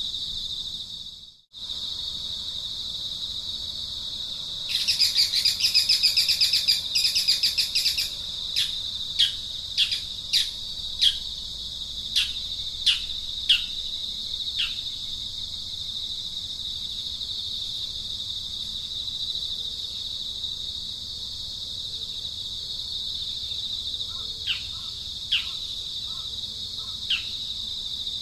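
Steady high-pitched drone of insects, with a bird calling over it: a rapid fluttering trill about five seconds in, then a string of short, quick downward-sliding chirps, which return near the end. The sound cuts out briefly about a second in.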